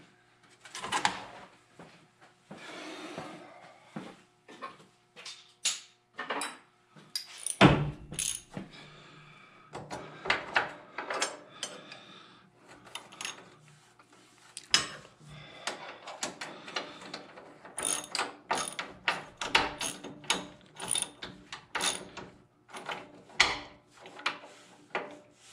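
Hand socket ratchet clicking in short strokes as bolts are run down, with metal clinks and a knock of tools against the frame.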